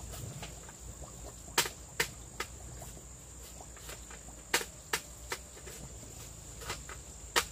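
Insects calling in one steady, high-pitched drone, with sharp clicks in groups of three, each about 0.4 s apart, heard three times: near two seconds in, around five seconds, and at the end.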